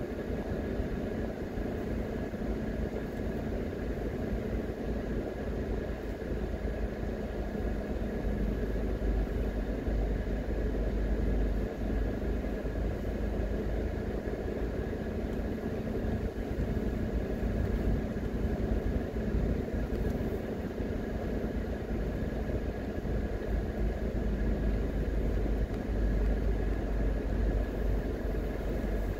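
Car engine and tyre rumble heard from inside the cabin while driving, a steady low rumble with a faint constant high tone over it.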